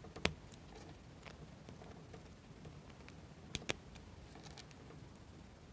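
Small plywood model-kit parts clicking as they are pressed into place by hand on a plywood pulley: a sharp click about a quarter second in, two close clicks a little past halfway, and a few softer taps between.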